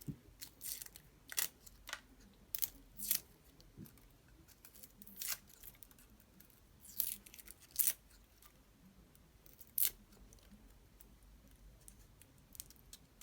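Dry, papery garlic skins crackling and tearing as garlic cloves are peeled by hand, in short, irregular, scratchy snaps with brief pauses between them.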